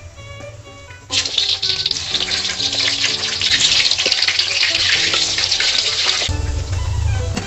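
Water running hard from a kitchen tap, a steady rushing hiss that starts about a second in and stops abruptly near the end, over background music.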